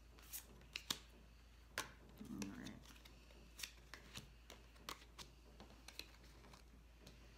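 Tarot cards being drawn from decks and laid down on a wooden table: a quiet string of short, sharp card taps and slides at irregular intervals.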